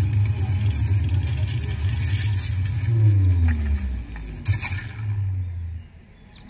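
A loud, low engine-like rumble under a steady hiss, with a slowly falling tone about three seconds in; it cuts off suddenly near the end.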